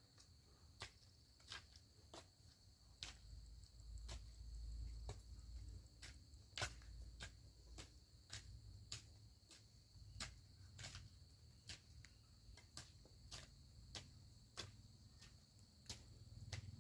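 Faint, sharp clicks of a short-handled hand hoe striking the soil, about one and a half a second at a steady working pace, over a steady high trill of insects.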